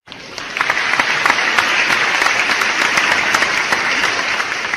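Applause from a crowd, many hands clapping. It swells in within the first half-second and begins to fade near the end.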